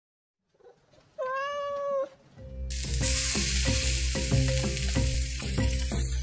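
A cat meows once, a single drawn-out call about a second in. Then music with a steady beat starts, and moments later seasoned chicken drumsticks begin sizzling loudly as they go into hot oil in the pan.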